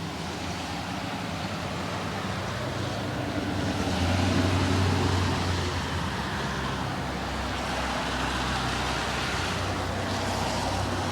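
Distant thunder rumbling low and steady, swelling about four to five seconds in, over a background of wind noise.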